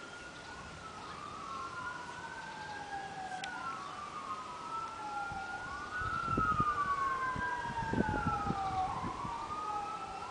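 Emergency vehicle siren wailing in slow rising and falling sweeps that overlap, growing louder. From about halfway in, low thumps sound under it.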